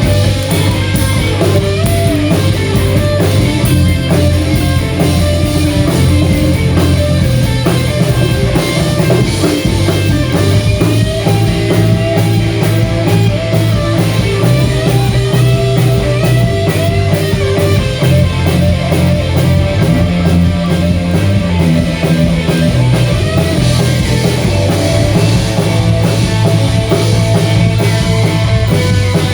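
Live blues-rock band playing: a guitar carries a bending melodic line over steady bass and a drum kit keeping a regular beat.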